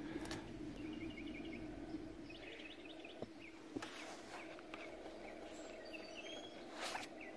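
Quiet room tone with a steady low hum, a few light clicks and taps as the plastic refrigerator shelf bin is handled and turned over, and scattered faint high chirps.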